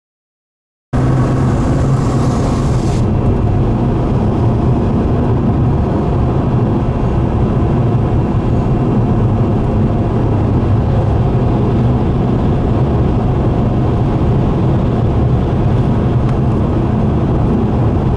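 Car driving, heard from inside the cabin: a steady low rumble of engine and road noise that starts abruptly about a second in.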